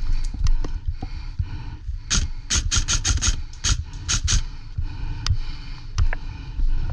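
A quick run of about a dozen sharp snaps over roughly two seconds, a couple of seconds in, with a few single clicks before and after, over a steady low rumble.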